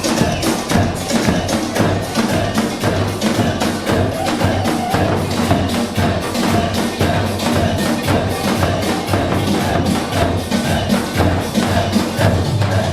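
Dance music with a fast, steady percussion beat.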